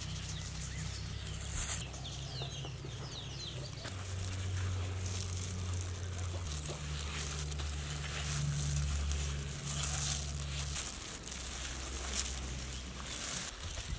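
A plastic-gloved hand stirring and scooping dry flour in a large steel bowl, giving a soft, repeated rustling and crinkling. Birds chirp in the background, briefly, about two seconds in.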